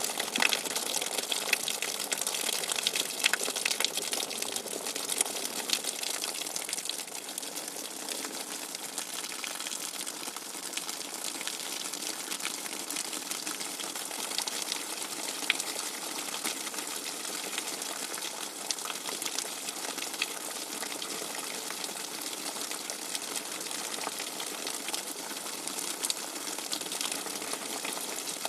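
Hard rain with fast-running water: a steady, dense hiss sprinkled with many small droplet ticks.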